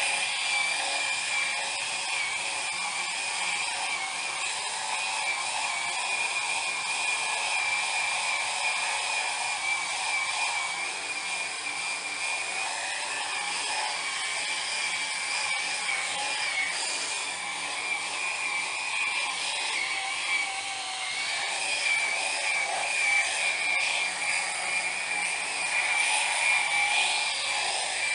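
Electric epilator running continuously with a steady high-pitched motor whine, growing a little louder and rougher in the last few seconds.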